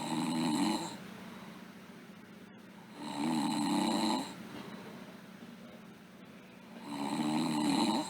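A sleeping girl snoring: three snores about three and a half seconds apart, each lasting about a second.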